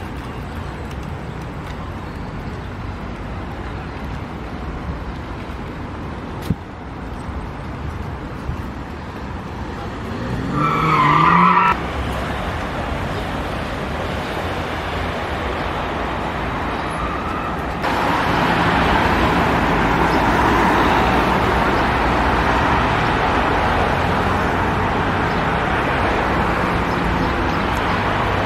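City street traffic: cars passing with a steady low rumble. About ten seconds in, one vehicle's engine accelerates, rising in pitch, the loudest moment, then the sound cuts off abruptly. Later it jumps to a louder, steady traffic rush.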